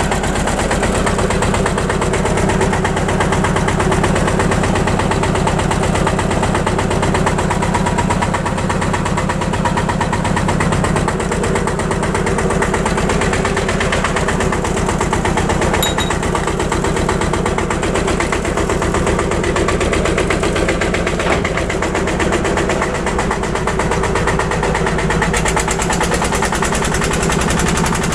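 Vintage tractor engine running steadily with an even, regular firing beat.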